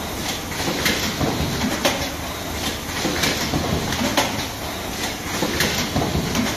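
Automatic card hot stamping machine running: repeated sharp clacks from its moving parts, roughly one a second and sometimes two close together, over steady machine noise.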